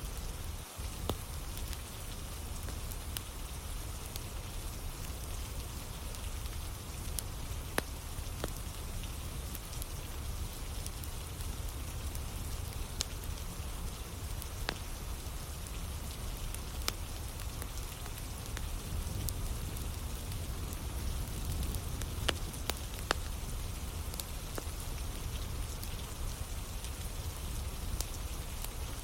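Steady rain falling, with scattered sharp crackles and pops of burning firewood.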